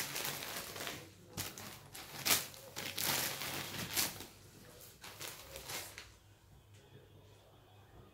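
Plastic sweet wrappers and packets crinkling as they are handled, in a run of rustles over the first four seconds, then fainter scattered rustles.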